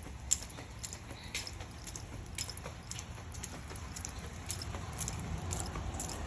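Irregular light clicks or taps, a few a second, over a low steady hum.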